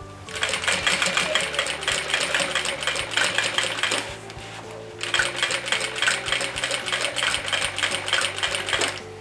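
Sewing machine running in two stretches of rapid, even stitching, each about four seconds long, with a short stop about four seconds in, as it sews bias binding along the edge of a fabric pouch.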